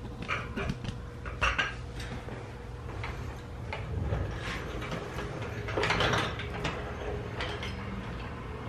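Metal parts and tools clinking and clattering in short, scattered knocks while a car's rear subframe and differential assembly on a floor jack is handled, with a longer scraping sound about six seconds in. A steady low hum runs underneath.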